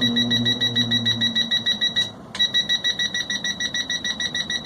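Rapid electronic warning beeping, about seven high beeps a second, breaking off briefly about two seconds in and then resuming. A low steady hum sounds under it for the first second or so.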